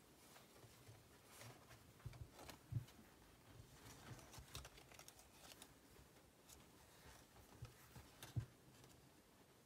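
Faint handling noises of a mesh running shoe and its paper price tag being turned in the hands: soft rustles and light taps, with a small knock a few seconds in and another near the end.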